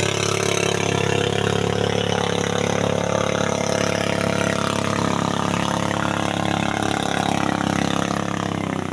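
Small boat's engine running steadily at a constant pitch, heard from on board, with a steady hiss of water and air over it.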